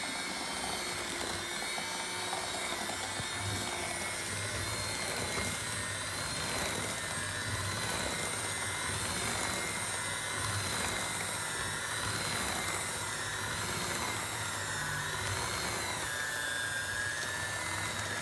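Electric hand mixer running steadily, its beaters working thick cookie dough that has just had its flour added. The motor whine wavers a little, then drops slightly in pitch about sixteen seconds in.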